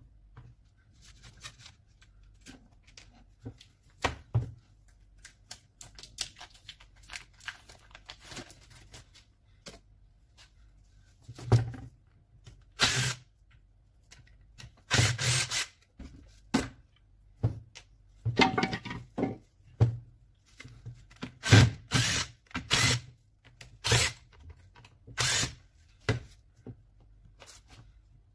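Plastic and metal parts of a Makita 9237C polisher being handled and pried apart on a workbench: irregular clacks, knocks and scraping, faint and sparse at first, then a run of louder sharp knocks in the second half.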